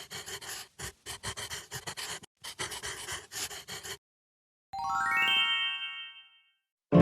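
Quick, breathy puffs of noise, about three or four a second, like panting, for the first four seconds. After a brief silence comes a rising run of bright chime tones, a glissando intro jingle.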